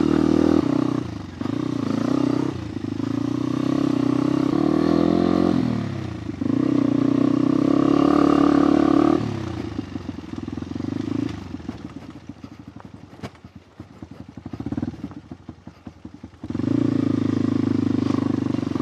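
Motorcycle engine running under way, its pitch rising and dropping with several gear changes in the first half. From about nine seconds in it falls to a quieter, uneven low-rev running for several seconds, then picks back up to a steady pull near the end.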